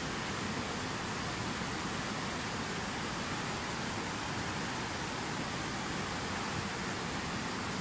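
Fast-flowing glacial mountain river rushing over boulders: a steady, even rush of whitewater with no breaks.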